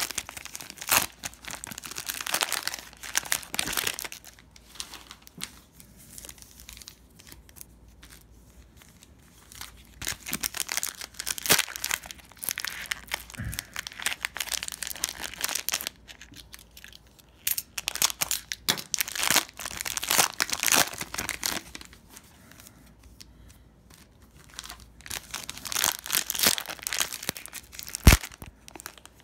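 Cellophane wrapping on trading card packs crinkling and tearing as it is handled and opened, in bouts of a few seconds with quieter gaps between. There is a single sharp tap near the end.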